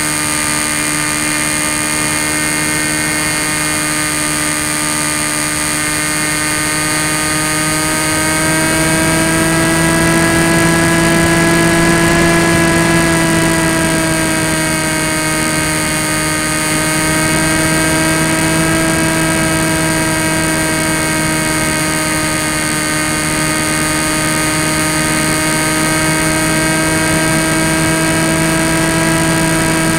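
Tek Sumo foam flying wing's electric motor and propeller whining steadily, heard from the camera on the airframe. The pitch and loudness rise a little about ten seconds in, then waver gently with the throttle.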